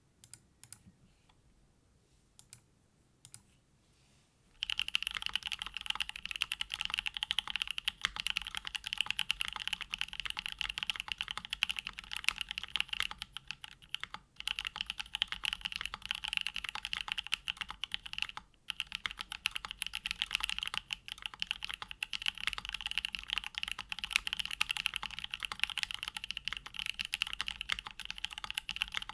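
Mode Envoy mechanical keyboard with hand-lubed Kailh Co Coa switches, a carbon-fibre plate with plate foam, and GMK Olive keycaps being typed on: a few single keystrokes, then fast continuous typing from about four and a half seconds in, broken by two brief pauses.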